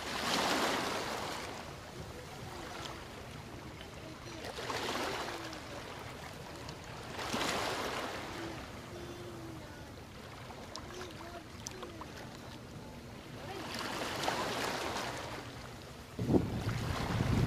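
Small motorboat under way at sea: a low steady engine hum with water rushing along the hull in several swells. Near the end a sudden loud rush of wind buffets the microphone.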